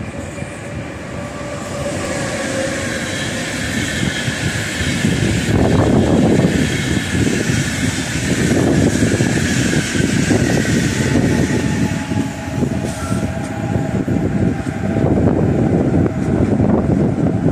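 Electric locomotive-hauled Intercity train passing close by, a loud rumble of steel wheels on rail with rapid clicks over the rail joints. It swells as the train approaches about two seconds in and stays loud from about five seconds on as the coaches go by.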